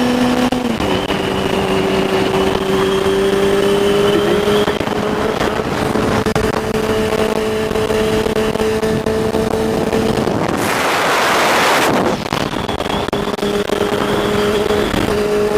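Honda CBR600 F4i's inline-four engine running steadily while riding, heard from a helmet camera; its note drops about a second in, then holds. About two-thirds of the way through, a loud rush of noise covers it for a second or two.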